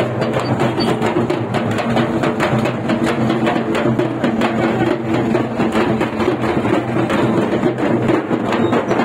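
Procession drumming: a large drum beaten with a stick together with hand-held frame drums, a loud, dense beat that keeps going without a break.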